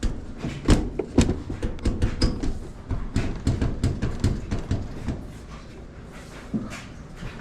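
Sheet-metal top panel of a Kenmore 90 Series clothes dryer being hooked back onto the cabinet: a quick run of clanks, knocks and rattles, easing off to quieter handling for the last couple of seconds.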